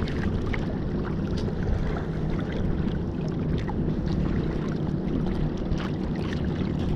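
Small fishing boat's engine running steadily at low speed, with water splashing against the hull.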